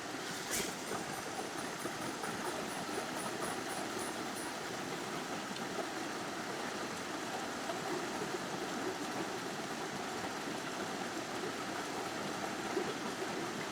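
River water rushing steadily. A single click comes about half a second in, and a faint high, rapid ticking runs from about one to four seconds in.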